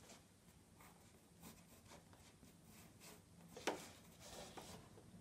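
Faint pencil strokes scratching on watercolour paper as outlines are sketched, with one louder scratch about three and a half seconds in.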